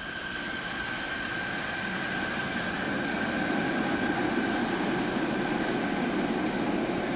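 Linear-motor subway train pulling out of the station, its rumble growing louder as it gathers speed, with a steady high tone over it that fades near the end.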